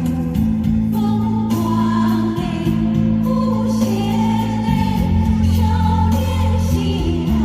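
Live concert music: sustained band chords that change every couple of seconds, with singing and choir-like voices over them.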